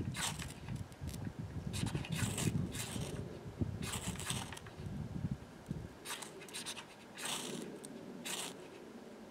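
Short scraping strokes, repeated at irregular intervals, from working at fatwood tinder to light a fire.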